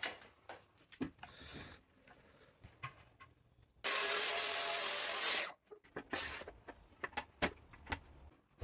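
A track saw running on its guide rail for about a second and a half, cutting plywood, starting and stopping sharply. Around it come knocks and sliding sounds as the rail and boards are handled.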